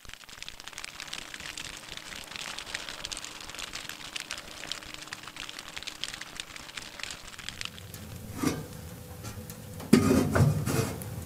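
Dense, irregular crackling of fire burning through dry field stubble. A few louder knocks and thuds come near the end.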